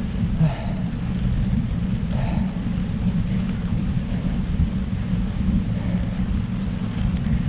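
Wind rumbling on the microphone of a road bike climbing a hill, with the rider's faint breaths about twice in the first few seconds.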